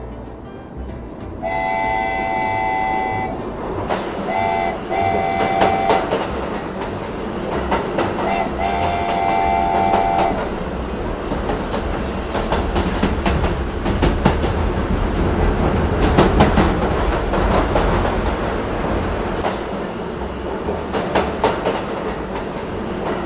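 Battery-operated toy train running around its plastic track, its wheels clicking and rattling over the rails. A train horn sounds in the first ten seconds: one long blast, then a short and a long, then another short and a long.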